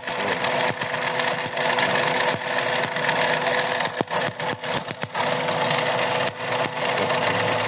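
Suzuki Celerio engine running with a steady hum and irregular sharp ticks, an uneven beat from an engine with a misfire.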